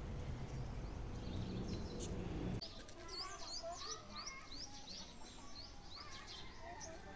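Birds chirping: a quick run of high, repeated chirps at about three a second begins about a third of the way in. Before that there is a low rumbling background noise.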